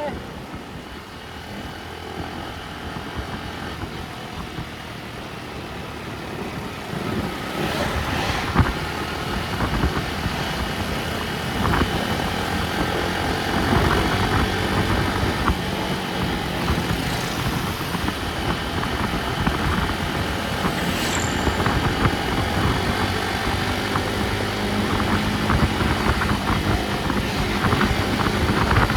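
A vehicle driving on the road: steady engine and road noise with a few brief knocks, growing gradually louder.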